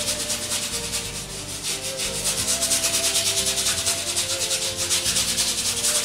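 Flat paintbrush scrubbing paint onto a stretched canvas in quick back-and-forth strokes, several a second, a steady scratchy rubbing.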